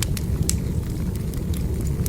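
Wood fire burning: a steady low rumble of flames with scattered sharp crackles and pops from the burning logs, a strong pop about half a second in.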